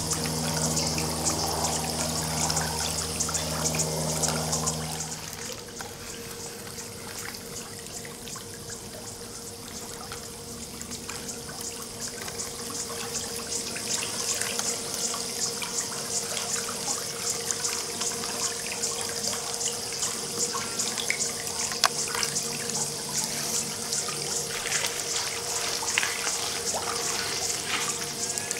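Water trickling steadily in an above-ground swimming pool, under a high steady hiss. A low machine hum runs beneath it and stops about five seconds in.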